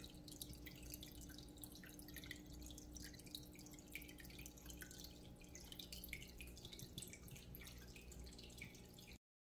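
Near silence: faint room tone with a low hum and a light scattering of soft ticks. It cuts off to dead silence just before the end.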